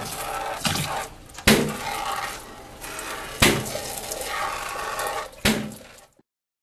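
Water sprayed from a rinse wand into the plastic tank of a Herkules waterborne paint gun washer, rinsing used paint off the tank floor, with a sharp clack about every two seconds. The sound cuts off suddenly near the end.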